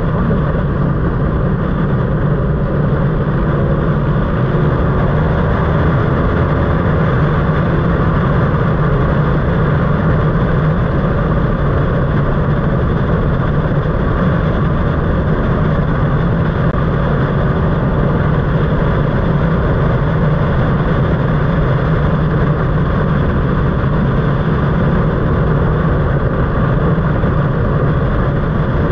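BMW R nineT Racer's air/oil-cooled boxer twin running steadily at cruising speed, with wind and road noise rushing over the microphone.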